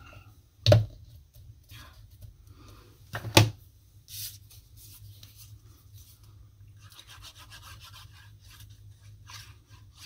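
Paper crafting at a work mat: a rubber brayer rubbed over glued paper, two sharp knocks, the first about a second in and the second a few seconds later, then the soft scratchy rustle of a paper strip being handled.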